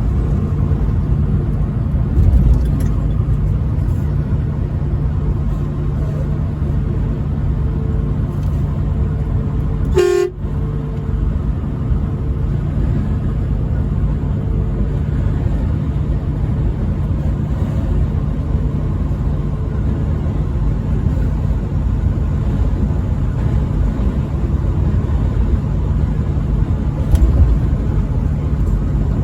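Steady low road and engine rumble of a truck driving at highway speed, with one short toot of the truck's horn about ten seconds in.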